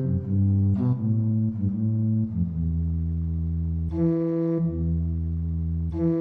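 Organ playing a soft passage: a moving bass line, then a long held low note with short chords sounding above it about four and six seconds in.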